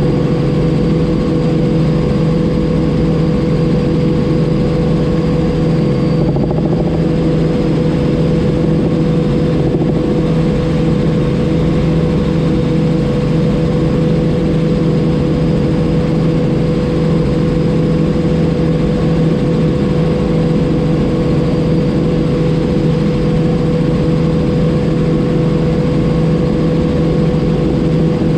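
Robinson R44 helicopter in flight, its piston engine and rotors running steadily at a constant pitch.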